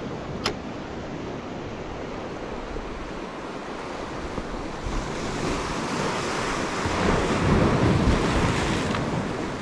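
Sea surf washing in among shoreline rocks, with wind on the microphone. The wash swells to its loudest about seven to eight seconds in. There is a single sharp click about half a second in.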